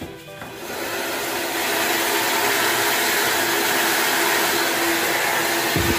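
Handheld hair dryer switched on and blowing hot air into a plastic bag tied over the hair: the rush of air starts about half a second in, builds over a second and then runs steady. A couple of low thumps come near the end.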